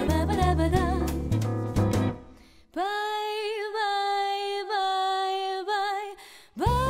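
Jazzy film soundtrack music: a band with a stepping low bass line and beat fades out about two seconds in, leaving a lone held melody with vibrato, and the full band comes back in near the end.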